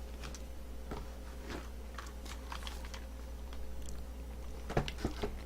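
Mouth sounds of someone chewing a soft, chewy granola bar: sparse faint clicks, with a few louder ones near the end, over a steady low electrical hum.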